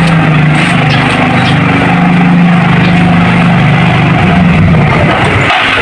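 Motorcycle engine running steadily, its pitch drifting slightly, then fading and breaking up near the end.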